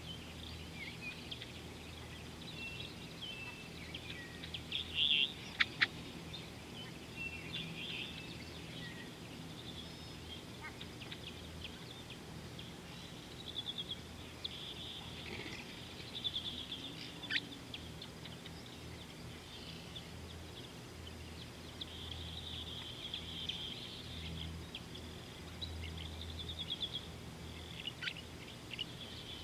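Birds chirping and trilling on and off over a steady low hum, with a few sharp clicks about five to six seconds in.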